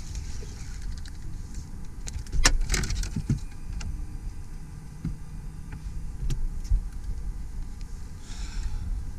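Wind rumbling on the microphone while a hooked bass is fought at the surface. A burst of splashing and sharp knocks about two and a half seconds in is the loudest sound, followed by a few lighter knocks.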